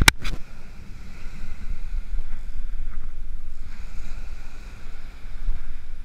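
Penn Clash spinning reel's drag buzzing in a few spurts as a hooked false albacore runs and takes line, over wind on the microphone and surf. A sharp click right at the start.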